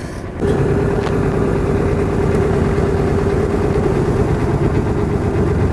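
Small sampan tour boat's engine running steadily with a low, even tone, getting louder about half a second in.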